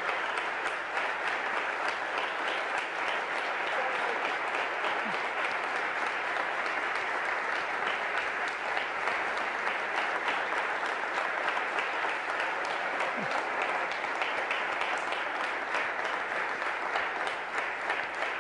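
A large audience applauding steadily, a long ovation of many hands clapping without a break.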